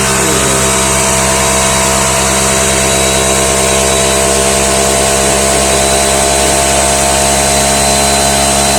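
Einhell 6-litre, 8-bar oil-free portable air compressor running steadily as it pumps up its tank, then cutting out abruptly at the very end when the automatic pressure switch stops it at 8 bar.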